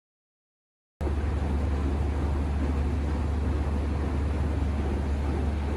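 Steady low hum and hiss of background noise, cutting in abruptly about a second in after a second of dead silence.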